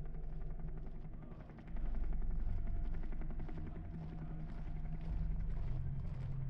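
Vehicle running with a steady low rumble, growing louder about two seconds in.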